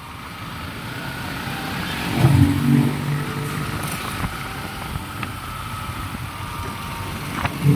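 Small Yamaha motorcycle's engine running at low speed with road and wind noise, with a brief louder moment about two seconds in.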